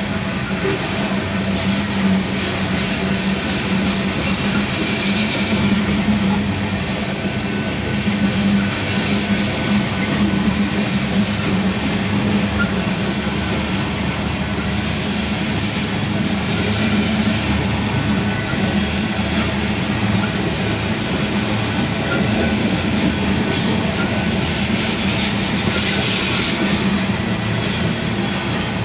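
Union Pacific covered hopper cars rolling past: a steady rumble and clatter of steel wheels on rail, with a few brief high-pitched wheel squeals.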